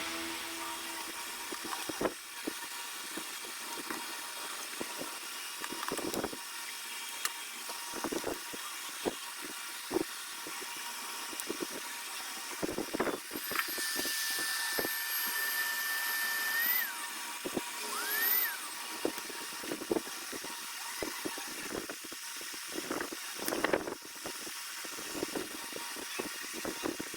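A small electric motor whines faintly and steadily, with scattered clicks and knocks from handling. About halfway through, a higher whine holds for about three seconds, then rises, and a short rising glide follows.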